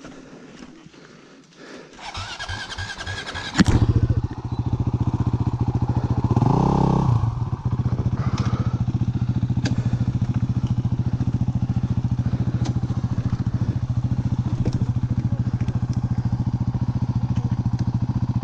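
Enduro motorcycle engine turning over for about a second and a half, then catching about three and a half seconds in. It revs up and back down once a few seconds later, then idles steadily.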